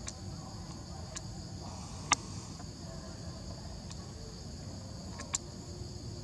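A steady, high insect chorus over a low background rumble, with four sharp clicks, the loudest about two seconds in.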